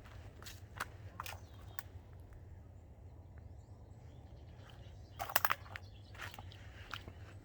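Irregular sharp crackles and snaps, with a louder cluster of them a little past five seconds in, over a steady low rumble.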